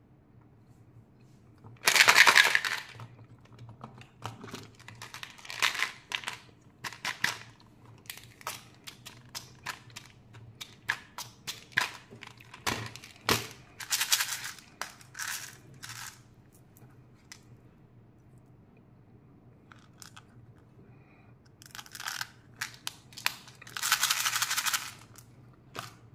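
Hands rummaging through a pile of plastic-packaged candies and plastic candy toys: wrappers crinkling and plastic pieces clicking and clattering against each other in irregular bursts, loudest about two seconds in and again near the end.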